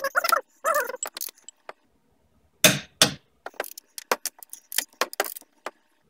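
Torque wrench and socket clicking and clinking on the Allen bolts of a Brembo front brake caliper as they are tightened to 129 lb-ft. Two louder clacks come about two and a half and three seconds in, with lighter metallic ticks after them.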